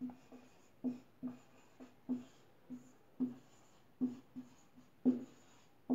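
Marker pen writing on a wall-mounted whiteboard: a run of short, irregular taps and strokes, about two a second, with the board knocking hollowly under each one.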